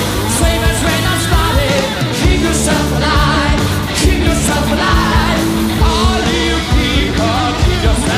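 A live rock band playing: electric guitar, bass and drums, with a man singing over them.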